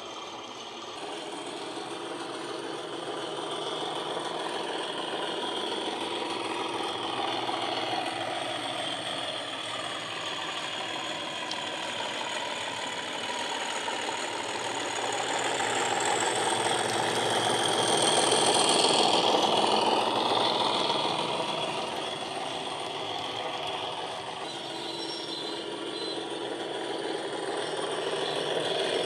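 Model Class 37 diesel's factory-fitted DCC sound decoder playing its English Electric engine sound through the model's small speaker as the locomotive runs. The engine note grows louder with gliding pitch changes to a peak about two-thirds of the way through, then eases back.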